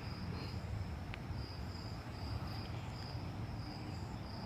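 Cricket chirping steadily outdoors, short high-pitched chirps repeating about two to three times a second over a low background rumble.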